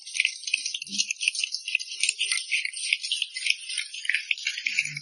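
Audience applauding: a dense, irregular run of hand claps.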